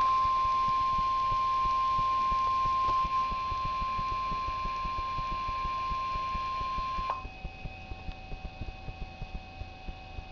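NOAA Weather Radio warning alarm tone, a steady 1050 Hz beep from a weather radio receiver, signalling that a warning broadcast is about to follow. It cuts off sharply about seven seconds in, leaving a faint lower steady tone and soft regular ticks.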